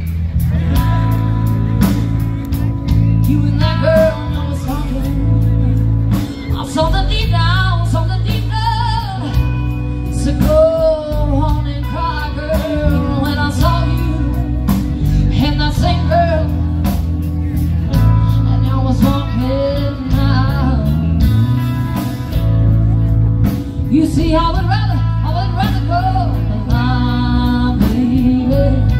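A band playing a song, with singing and guitar over a steady, full bass line.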